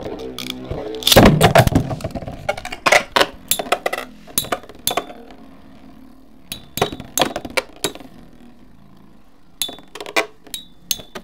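Two Beyblade spinning tops clashing in a plastic stadium: a loud clattering burst about a second in, then irregular sharp clinks as the tops strike each other and the stadium wall, some with a brief high ring.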